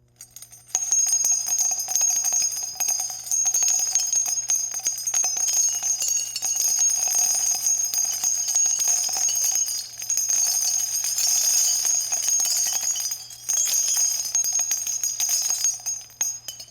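Spent .50 caliber shell casings dropping and clattering against one another in a continuous metallic jingling and clinking. It starts about a second in, thins out briefly twice, and stops just before the end.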